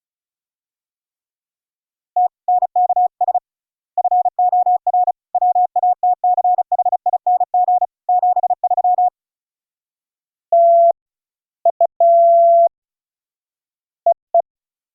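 Morse code CW audio: a single steady tone keyed on and off in dots and dashes. A fast run of characters goes on for about seven seconds, then after a pause come a few slower dashes and dots at a slightly lower pitch.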